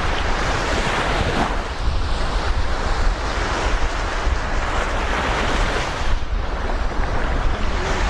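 Sea waves washing ashore, with wind rumbling on the microphone: a steady, rough rush with no distinct breaks.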